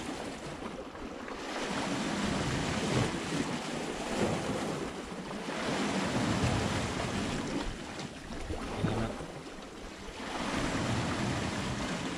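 Sea waves washing against the rocks, swelling and ebbing in slow surges every few seconds, with some wind on the microphone.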